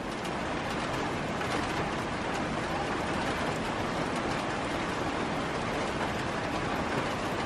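Steady rain falling, an even, dense hiss.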